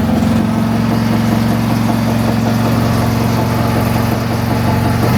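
Boat engine running steadily at idle just after starting, an even, unchanging low engine note.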